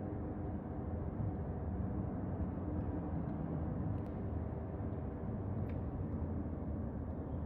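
Steady low rumble of a running vehicle, with a couple of faint clicks partway through.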